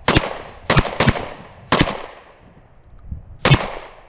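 Five shotgun shots. The first four come about half a second apart, then after a pause of over a second comes the fifth. Each shot trails off in a short echo.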